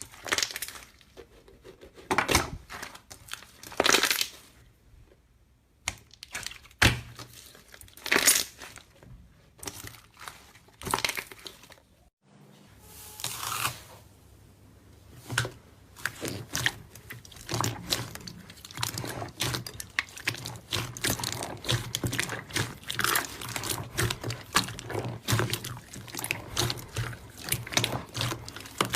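Slime being squeezed and worked by hand, giving irregular crackling and popping sounds: scattered louder bursts at first, then a break about twelve seconds in, followed by a dense run of small rapid crackles.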